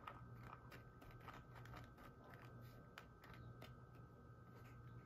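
Near silence: faint, scattered clicks and rustles of soaked, sprouting pea seeds being handled in a plastic basket, over a steady low hum.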